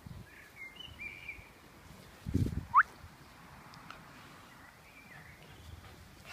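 A few faint bird chirps, with one short rising call about three seconds in. A brief low thump or rustle just before it is the loudest sound.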